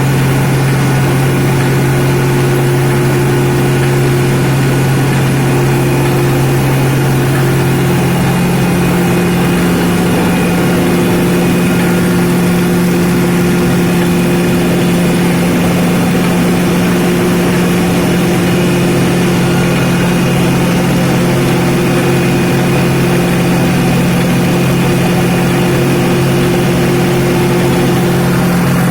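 Rice milling machine running steadily with a loud, continuous mechanical hum; a second, higher hum comes in about seven seconds in.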